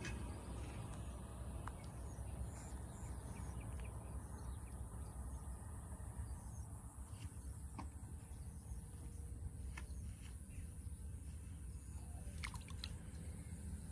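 Quiet outdoor ambience: a steady low rumble with faint, scattered bird chirps and a few soft clicks.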